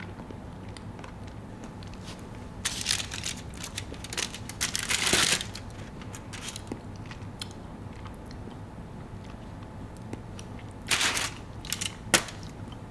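A few short crunching sounds of a bite of filled chocolate bar being chewed, the loudest about five seconds in, others about three seconds in and near the end, with faint clicks between.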